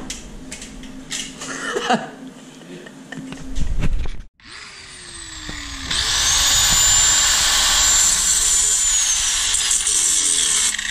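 Handling knocks and clatter, then about six seconds in an angle grinder with a cutoff wheel comes up to speed and cuts through the tips of steel seat-mount bolts. It makes a loud steady grinding with a high whine that drops in pitch near the end.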